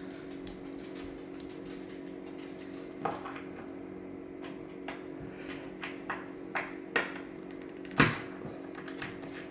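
Scattered small metallic clicks and taps as dimple-lock parts and picking tools are handled during disassembly, the sharpest about eight seconds in, over a steady low hum.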